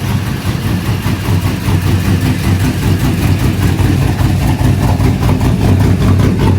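Car engine idling steadily with an even low hum.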